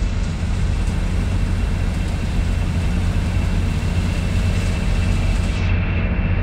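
Bus in motion heard from inside the cabin: a steady low engine hum with road and rumble noise.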